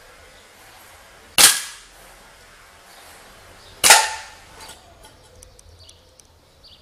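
Two shots from a Crosman Nitro Venom Dusk gas-piston air rifle, about two and a half seconds apart. The second is followed by a short metallic ring as the pellet strikes the old aluminium saucepan without piercing it.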